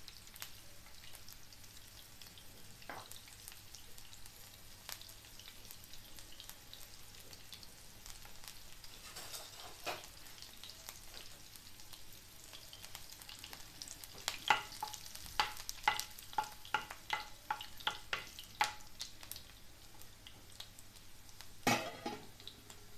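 Chopped onion and a bay leaf frying in oil in a nonstick pan, a steady faint sizzle. Past the middle comes a run of about a dozen sharp clicks, two or three a second, and near the end one louder knock.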